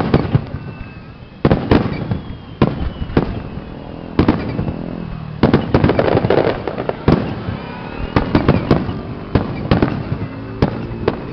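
Fireworks display: aerial shells bursting in an irregular string of sharp bangs, often two or three close together.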